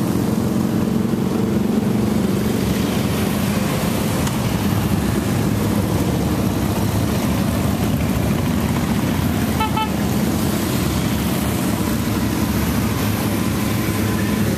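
Engines of a line of touring motorcycles running steadily as the bikes ride past one after another. About two-thirds of the way through there is a short beep.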